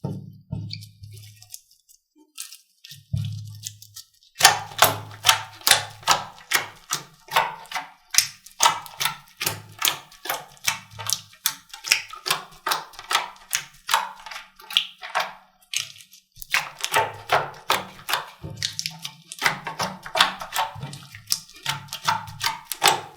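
Slime being squeezed, pressed and stretched by hand, giving rapid sticky clicks, crackles and small air-bubble pops, several a second. The clicking starts in earnest about four seconds in and pauses briefly past the middle.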